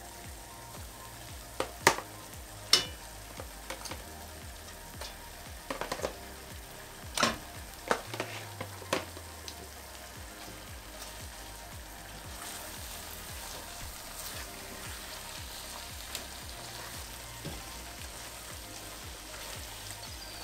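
Korma gravy sizzling in a stainless steel pot as browned chicken pieces go in, with a string of sharp knocks and clinks against the pot in the first half. The pot keeps sizzling as the chicken is stirred into the gravy with a silicone spatula.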